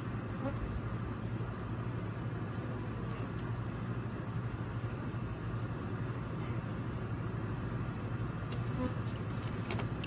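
Steady buzzing of a dense cloud of honey bees flying around an opened hive, over a low, even hum.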